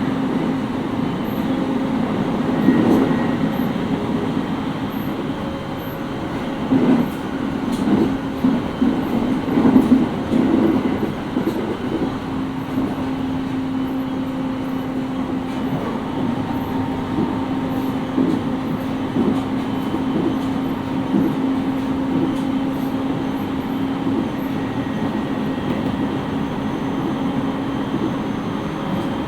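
Interior running sound of a JR East 701 series 5500 subseries electric train, heard inside the motor car: wheels rumbling on the rails under a steady hum, with a run of knocks and clatter in the first half.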